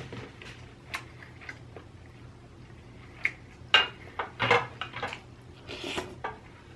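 Close-miked eating sounds: chewing, with scattered sharp clicks of utensils against dishes and short wet bursts, busier in the second half.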